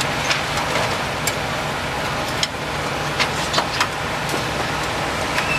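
Metal waffle irons and tongs clinking now and then as the irons are handled on the stove, over a steady low hum like an idling engine or burner.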